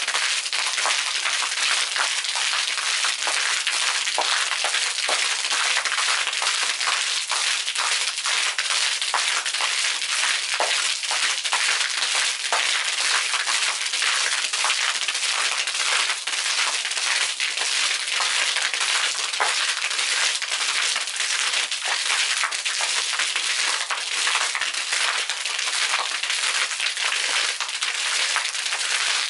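Water from a submersible arching fountain jet splashing down onto a concrete deck and a pool's surface: a steady patter with many small sharp splats.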